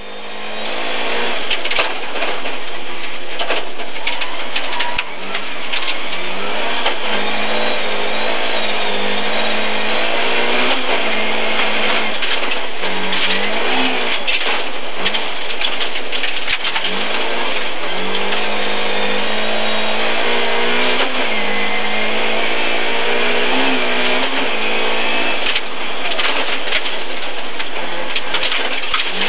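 Rally car engine heard from inside the cabin, driven hard on a gravel stage: the engine note climbs and drops back again and again as it is revved up through the gears, over a steady rush of tyre and gravel noise with scattered sharp knocks.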